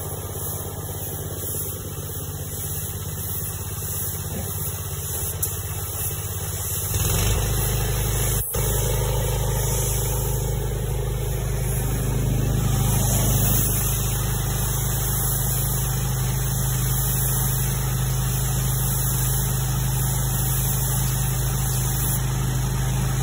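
An engine running steadily. About seven seconds in it gets louder, with a stronger low hum, and stays that way.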